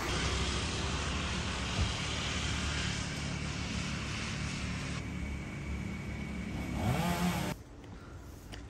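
A vehicle engine running under a steady outdoor rumble, its pitch rising quickly near the end before the sound cuts off suddenly.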